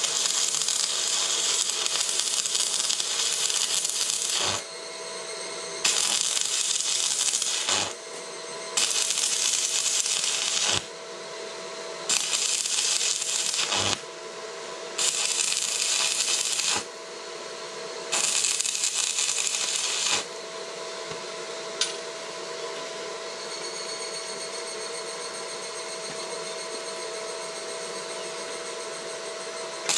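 Stick (arc) welding with a SUZUKID WELD-ON140 welder and mild-steel rod: the arc crackles in six short runs of about two seconds each with brief pauses between. From about twenty seconds in there is only a lower, steady hiss.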